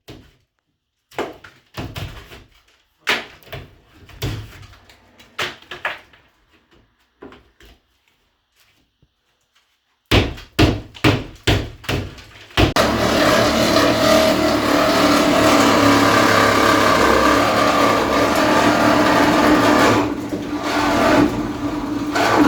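Scattered knocks and clatter of demolition work, then, about halfway through, a steady electric motor runs loudly for about ten seconds before stopping.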